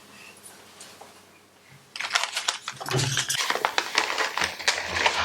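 Quiet at first, then from about two seconds in a busy run of clicks and rustling as the plastic phone housing and its grip tabs are handled.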